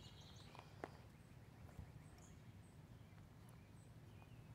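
Near silence: faint outdoor background with a low, steady rumble, one light tick about a second in, and a few faint high chirps.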